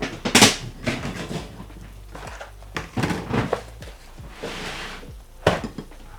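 Kitchen clatter: dishes, pans and utensils knocked and set down, several sharp knocks, the loudest about half a second in.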